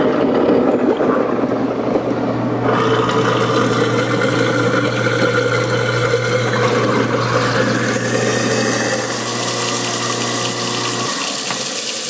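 Garbage disposal motor running with a steady hum while a sink of hot bleach water rushes down the drain through it. The motor shuts off near the end, leaving only running water.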